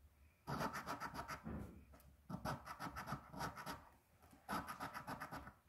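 A coin scraping the scratch-off coating from a lottery ticket, in three runs of quick back-and-forth strokes, each a second or more long, with short pauses between.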